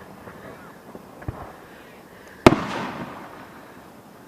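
A firework bursting with one loud, sharp bang about two and a half seconds in, its boom echoing and fading over a second or so, after a fainter pop a little over a second in.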